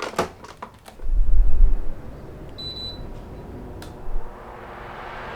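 Plusminuszero Living Fan Z710 electric fan being switched on: a few clicks and a brief low rumble, a short high beep from its control panel about two and a half seconds in, then the rush of its airflow building up steadily.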